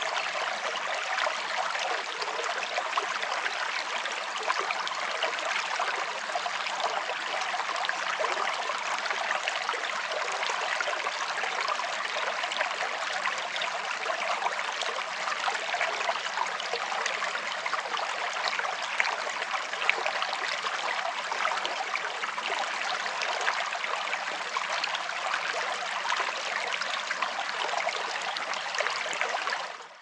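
Shallow woodland stream flowing with a steady, even rush of water, fading out at the very end.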